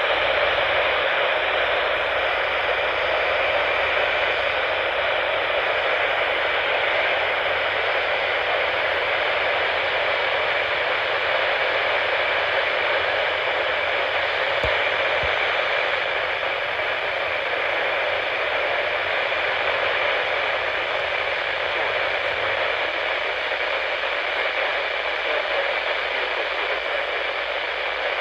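Steady hiss of radio static from a receiver carrying no voice and no alert tones, held in the narrow band of a radio's audio.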